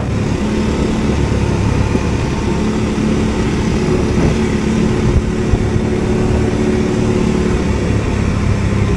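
Segway Snarler AT6L ATV's 570cc engine running at a steady speed while the quad is under way.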